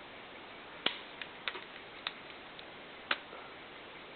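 Scattered light clicks and taps of Colt M4 .22LR rifle parts being handled as the upper and lower receivers are fitted together, about six in all, the two loudest about a second in and about three seconds in.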